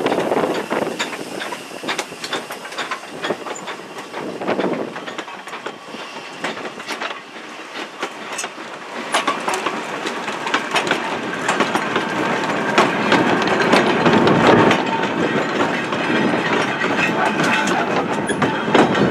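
WD Austerity 0-6-0ST saddle tank steam locomotive passing close, followed by a rake of four-wheeled goods wagons clicking and clanking over the rail joints. The rattle dips in the middle and grows louder again in the second half.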